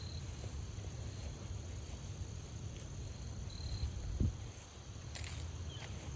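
Crickets trilling in a steady, unbroken chorus over a low outdoor rumble, with a single soft thump about four seconds in.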